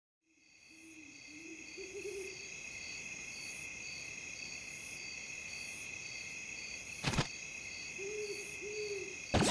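Night ambience fading in from silence: a steady insect chorus with a cricket chirping about twice a second, and an owl hooting low near the start and twice near the end. A single sharp click comes about seven seconds in, and music cuts in at the very end.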